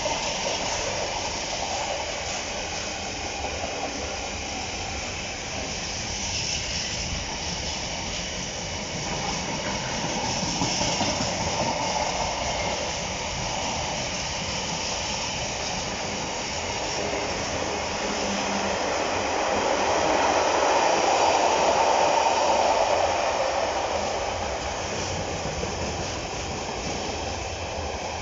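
Empty container flat wagons of a Freightliner freight train rolling past, a steady noise of wheels on rail that swells louder about twenty seconds in.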